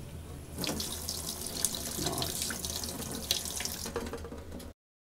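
Kitchen mixer tap running into a stainless steel sink, the stream splashing over a hand and a glass held beneath it, with a few light clinks. It is the first water drawn through the newly fitted combi boiler, run to check the water supply. The sound stops abruptly near the end.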